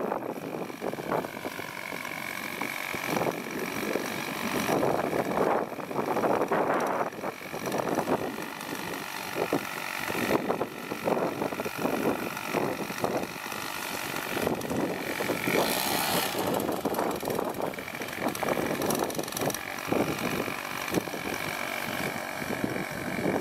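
Paramotor engine idling steadily behind the pilot, with gusts of wind buffeting the microphone in irregular loud surges that cover it at times.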